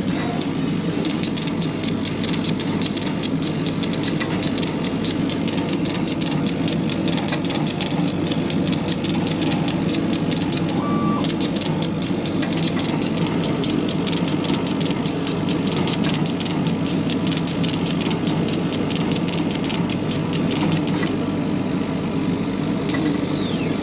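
Red Dragon laser engraver running a job: a steady drone from its fan and air pump, under fast, fine ticking from the head's motors as it scans back and forth. The ticking pauses briefly twice, and short gliding whines come near the end as the head repositions.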